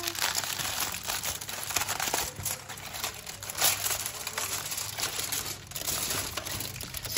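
Aluminium foil crinkling and crackling as a crumpled foil cover is peeled back by hand, an irregular run of sharp crackles.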